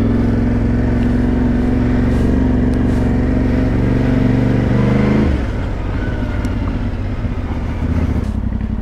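Motorcycle engine running at steady revs while riding. About five seconds in, the revs drop and the engine settles into a lower, pulsing beat as the bike slows.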